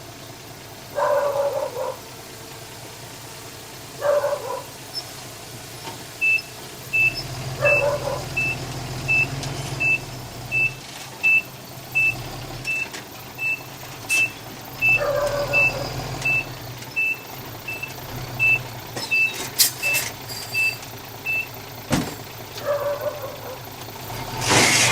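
Heavy earth-moving machine's reversing alarm beeping evenly, about three beeps every two seconds, for some fifteen seconds over its low engine running. A dog barks now and then.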